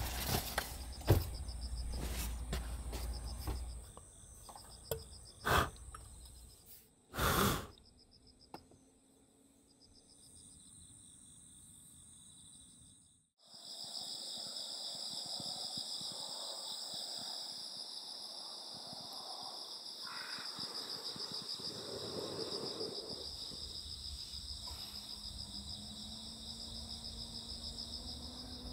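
Knocks and rustling as a foam sleeping mat is handled inside the car, with a louder thump about 7 seconds in. From about 13 seconds in, insects chirping in a steady, high, pulsing chorus of the kind crickets make in early autumn.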